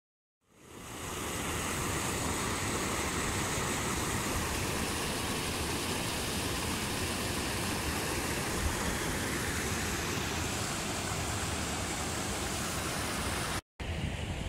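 Water pouring over a concrete weir, a steady rushing that fades in at the start and holds evenly. It cuts out for an instant near the end, giving way to a less even noise.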